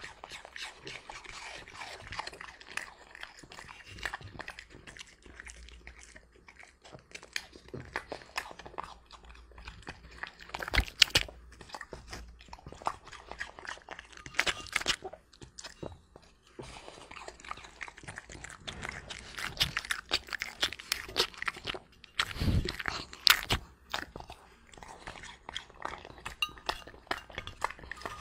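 French Bulldog chewing apple: a run of irregular wet crunches and bites, with louder clusters of crunching a little over a third of the way in and again about three-quarters of the way through.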